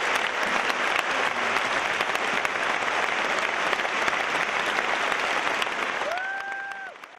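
Concert audience applauding, a dense steady clapping that fades out at the end. Near the end a short, held pitched tone rises briefly out of it.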